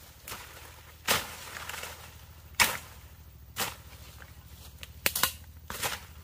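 A hand digging tool, such as a hoe, striking and chopping into soil while digging up tubers. The sharp, irregular strikes come about once a second, with two in quick succession near the end.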